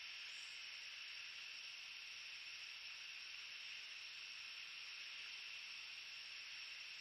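Steady high-pitched hiss with no distinct events; the eagle's shifting on the nest makes no sound that stands out.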